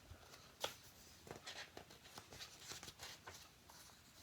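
Soft rustling and handling of a picture book's paper pages, with one sharp tap about half a second in.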